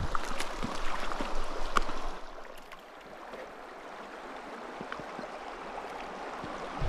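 Shallow, rocky creek running, with small splashes and drips of water in the first two seconds, then a quieter steady babble of flowing water.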